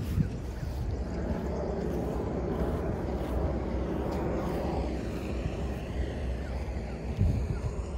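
A steady distant engine drone that swells through the middle and fades toward the end, over a constant low rumble, with a brief bump about seven seconds in.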